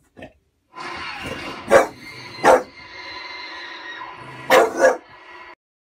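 Bulldog barking: four short single barks, the last two close together, over a steady background of television sound that cuts off abruptly near the end.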